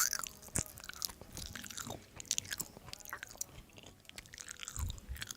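Close-miked chewing and eating: soft, wet mouth clicks and smacks, scattered irregularly.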